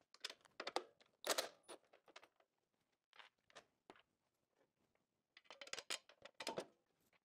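Faint clicks and clinks of steel bolts and sheet-steel parts being handled, with louder knocks about a second in and again around six seconds in as the steel tank shelf is handled against the stand column.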